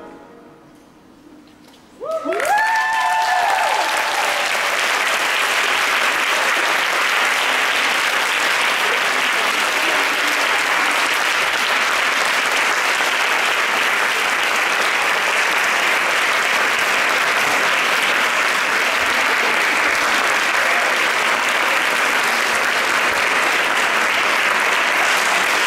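After a short hush as the music ends, an audience starts applauding about two seconds in, with a few whooping shouts at the start, and the applause then runs on steadily.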